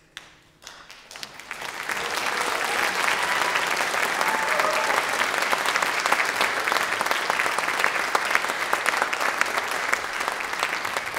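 Audience applauding after a choral song: a few scattered claps, then applause swells within about two seconds into steady clapping from a large crowd.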